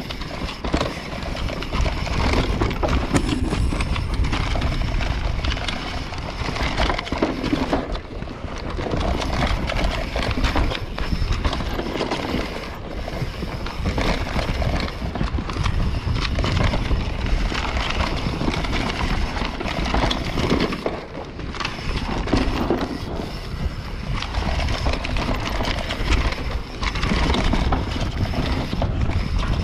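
Enduro mountain bike descending a rough dirt forest trail at speed: continuous clattering and rattling of the bike and tyres over bumps and roots, with many sharp knocks and a constant low wind rumble on the microphone.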